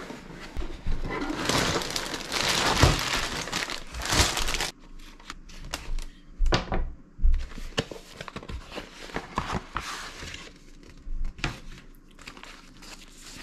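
Plastic LEGO parts bags crinkling and rustling as the set's box is opened and its numbered bags are tipped out and handled, with knocks of cardboard and paper. A dense stretch of crinkling comes in the first few seconds, then scattered knocks and rustles.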